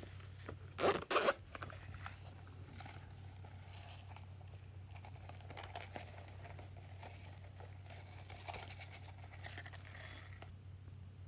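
A zipper on a plastic bow-shaped pouch is pulled open with a short two-part rasp about a second in. Faint crinkling and light pattering follow as sequins and glitter are shaken out of it onto slime.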